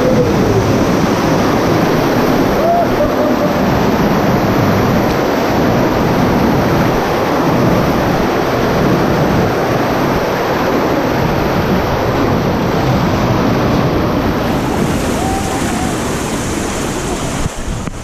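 Loud, steady rush of churning water from a water-park rapids ride, heard close up from a tube riding down it.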